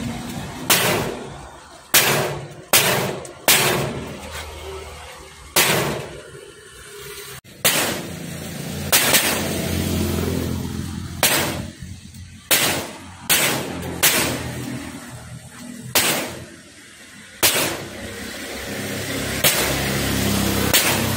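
A run of loud, sharp bangs, one every second or two, each dying away in a ringing tail, over a low steady background.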